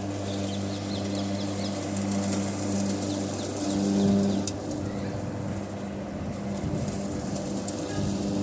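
Electric lawn mower motor running steadily with a low hum while it cuts grass, swelling briefly about halfway through. Birds chirp briefly near the start, and there are a couple of sharp ticks.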